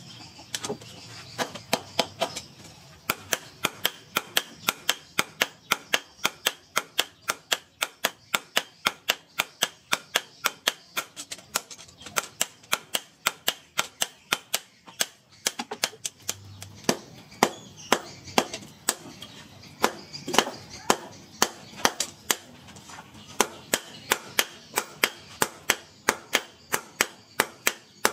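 Blacksmith's hand hammer striking red-hot sword-blade steel on a steel post anvil, in sharp, steady blows about three a second.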